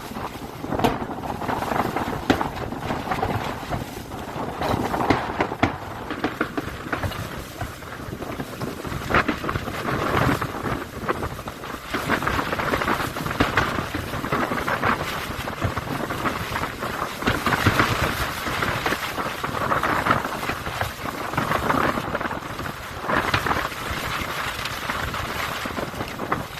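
Fireworks display: aerial shells going off in quick succession, sharp bangs over a continuous crackle.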